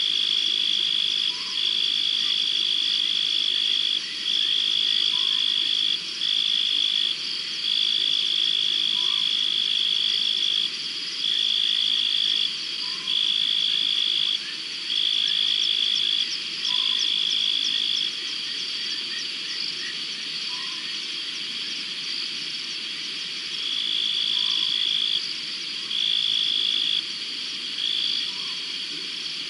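Night chorus of insects: a steady high trill, with a louder high trill that comes in one-to-two-second bursts with short breaks and drops out for several seconds past the middle. A short, softer note repeats about every two seconds underneath.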